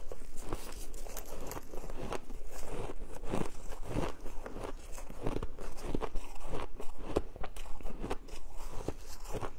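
A mouthful of colourful shaved ice being chewed and crunched, close to the microphone, in many irregular crunches.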